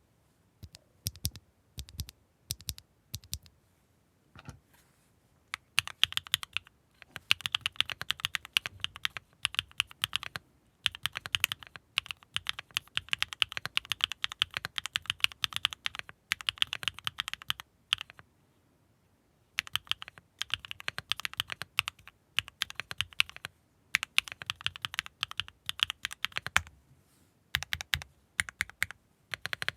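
Typing on a Neo65 Core Plus mechanical keyboard with Gateron Mars linear switches, a carbon fibre plate, case foam and KAP Disconnected Dark keycaps: a few separate keystrokes at first, then fast runs of key presses with short pauses between bursts.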